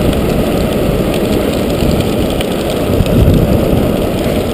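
Hard plastic wheels of a Big Wheel tricycle rolling fast over asphalt: a loud, steady, rough rumble with small rattles, swelling briefly about three seconds in.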